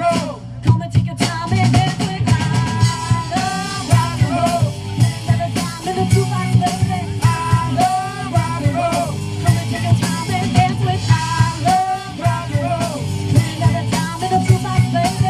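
Live band playing a song: a woman singing lead over electric bass, a drum kit, keyboard and electric guitar.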